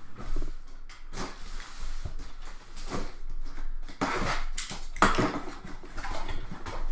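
Cardboard case and boxes being handled and opened: irregular scraping, rustling and light knocks, with the loudest scrapes about four and five seconds in.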